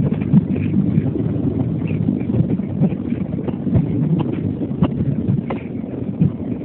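Car interior noise while driving: a steady low engine and road rumble, with a few light clicks in the second half.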